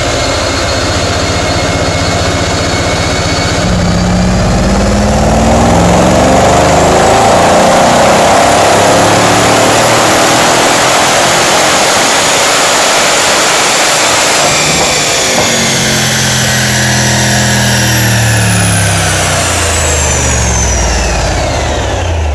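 Mercedes-Benz E63 AMG 4MATIC's twin-turbo V8 in a dyno run: from about four seconds in it pulls up through the revs while a high whine climbs steadily, then a little past halfway it lets off and the engine note and the whine fall away together as the wheels wind down on the rollers.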